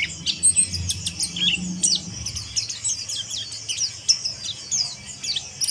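Mountain white-eye (pleci monty) twittering in a rapid, harsh chatter of quick high chirps and short down-slurred notes, without pause.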